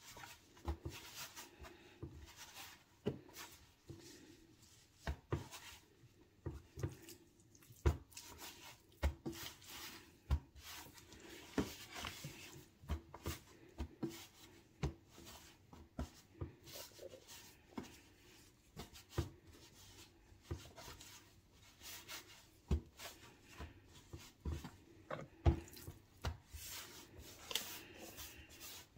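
Raw chicken pieces being pressed and turned by hand in a dry flour coating mix: soft rubbing and rustling with irregular light thumps and clicks.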